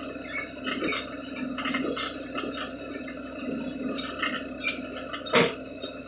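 Swaraj 963 tractor's diesel engine running under load while its backhoe digs a trench, the bucket scraping and knocking against stony soil, with one sharp knock about five seconds in. A steady high-pitched tone sits over it.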